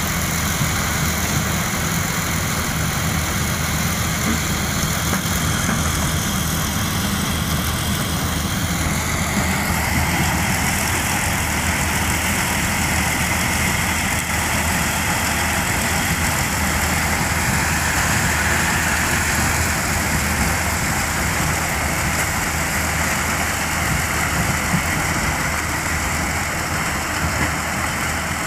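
Kubota DC-108X combine harvester running steadily while harvesting maize: a constant engine drone with a high whine over it that shifts in pitch about ten seconds in.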